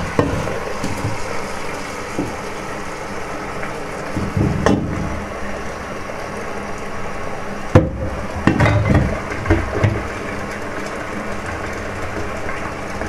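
Tap water running steadily into an aluminium pot of soaked whole peas in a stainless steel sink, filling it. A few sharp knocks of the pot against the metal sink come about halfway through and again a few seconds later.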